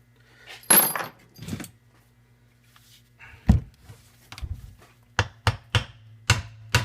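Metal clinking, then a run of sharp taps, about two or three a second, on a 70cc Chinese quad engine's crankcase as it is being knocked apart after its case bolts are out.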